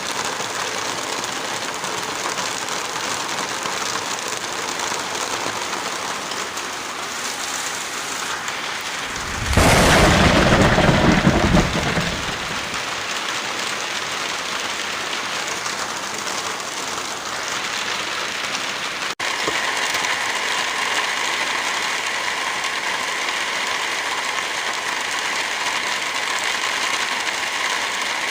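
Heavy rain falling steadily, a dense hiss of drops. About ten seconds in, a louder, deeper rush swells for two to three seconds; later the sound cuts out for an instant and the rain returns brighter and more even.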